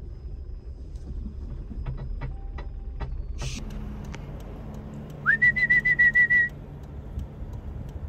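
A whistle command to a working sheepdog: one note sliding up, then a quick run of about eight short pips, over the low steady hum of the farm ute's engine.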